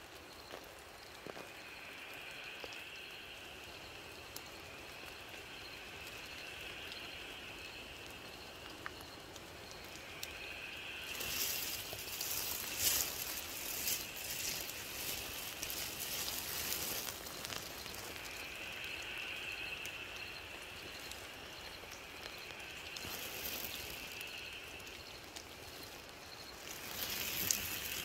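High-pitched background calling from the night bush that swells and fades over several seconds at a time. It is broken in the middle by a few seconds of scattered rustling and patter.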